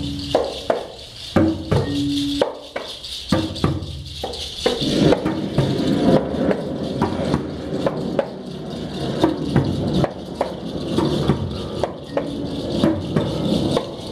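Percussion music with many quick, sharp strikes and rattles, growing denser from about five seconds in.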